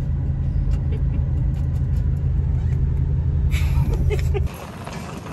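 Steady low drone inside a car's cabin while it is being driven, which cuts off suddenly about four and a half seconds in, leaving a quieter hum.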